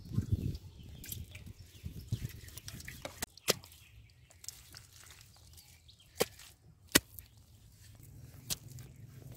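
Wet mud squelching as a hand works it, briefly at the start, then a few sharp, isolated clicks over a quiet outdoor background.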